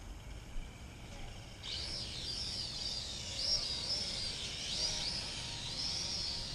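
Birds chirping, a dense chorus of wavering calls that starts about two seconds in, over a faint outdoor rumble.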